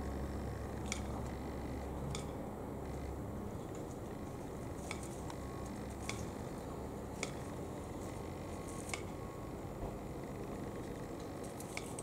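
Steady outdoor background hiss with a low hum that fades out about three seconds in, and about seven faint, sharp clicks scattered through.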